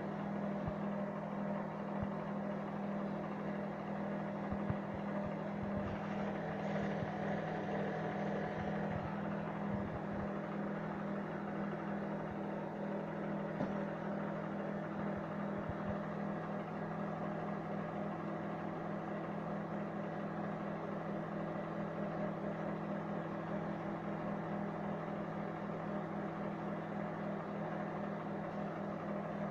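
Microwave oven running: a steady electrical hum with fan whir, and a few faint pops in the first half.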